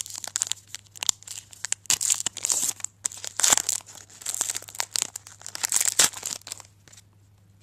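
A trading-card pack wrapper being torn open and crinkled by hand, in a run of irregular crackling bursts that stops about a second before the end.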